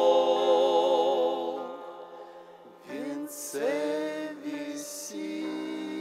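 A vocal trio of a woman and two men sings a slow Russian hymn into microphones. They hold a long chord with vibrato that fades out about two seconds in. After a short pause they start a new phrase whose notes slide up into place, and held tones follow.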